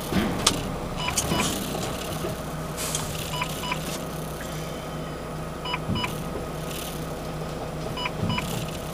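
Gravel truck's engine running steadily, heard from inside the cab, with pairs of short electronic beeps repeating about every two seconds and a few brief hisses.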